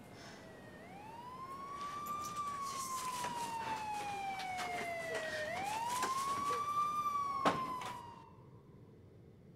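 Emergency vehicle siren in a slow wail, twice rising quickly in pitch and then sliding slowly down, growing louder. A sharp click sounds near the end, and the siren cuts off suddenly just after.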